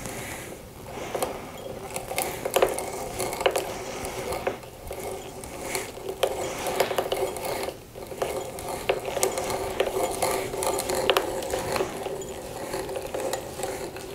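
Hand drill boring peg holes through a wooden mortise, a continuous mechanical grinding and clicking with brief pauses about five and eight seconds in.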